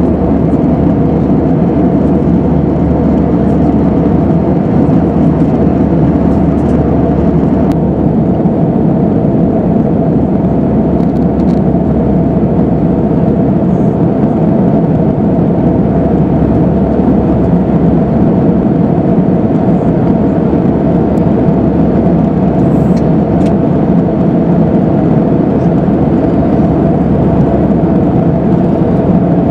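Steady cabin noise of an Airbus A320 at cruise, heard from inside the cabin: a constant rush of air with a low hum from its CFM56-5B engines under it.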